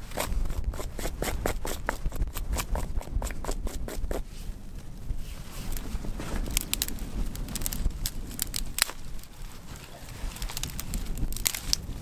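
Dry twigs and grass stems crackling and snapping as they are cut and scraped with a knife, in a rapid irregular run of sharp clicks that pauses twice, over a low rumble of wind on the microphone.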